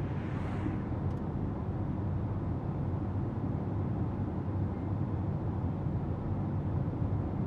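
Steady low rumble of a van driving, heard from inside its rear compartment.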